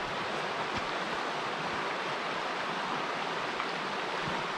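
The River Wye rushing steadily where it breaks into white water over a shallow step in the riverbed.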